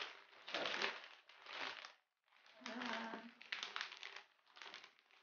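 Plastic shopping bag rustling and crinkling in irregular bursts as it is handled and pulled open, with a brief silent gap about two seconds in.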